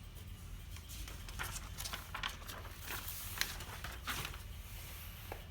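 Faint, irregular clicks and scratches of a screwdriver turning an adjustment screw on an EAS anti-theft gate's motherboard, setting it back to position 2, over a low steady hum.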